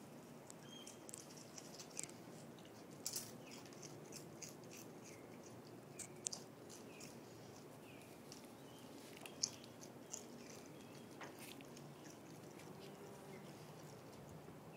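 Raccoon crunching and chewing potato chips: scattered short, crisp crackles, one sharper crunch a little past the middle, over a faint background with a few brief high chirps.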